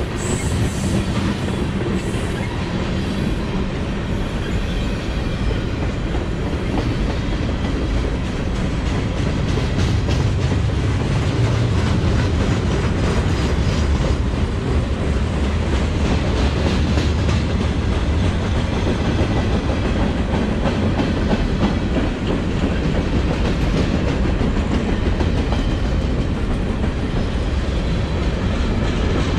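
Freight cars of a CSX manifest train rolling past, with a steady rumble and wheels clicking over the rail joints.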